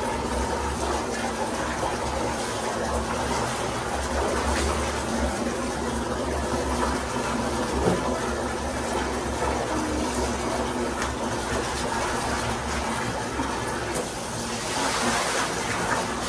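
Tap water running steadily into a bucket, with splashing from clothes being washed in it; the splashing grows louder near the end.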